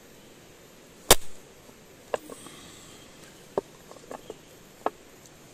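Garlic cloves crushed under the flat of a cleaver on a chopping block: one heavy thud about a second in, then several light clicks and taps as the crushed garlic is handled.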